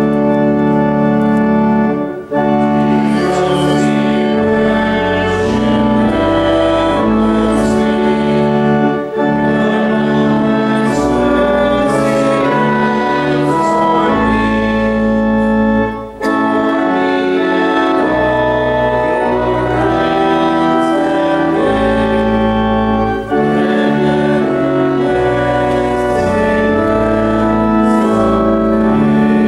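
Church organ playing a hymn in sustained chords, phrase by phrase, with a short break about every seven seconds.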